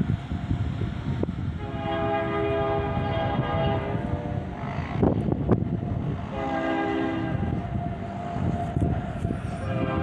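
Distant train horn sounding a chord in long blasts: two long blasts, then a third starting near the end, over a steady low rumble. Two short knocks come about halfway through.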